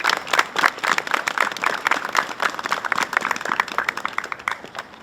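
Audience applauding with many separate hand claps, thinning out and stopping shortly before the end.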